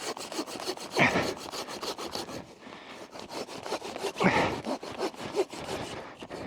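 Hand saw cutting through a fallen tree trunk: rapid, even back-and-forth strokes through the wood, swelling louder about a second in and again past the middle.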